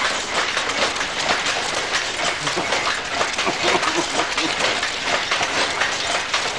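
Power loom weaving tweed: a steady, dense mechanical clatter of rapid clicks and knocks.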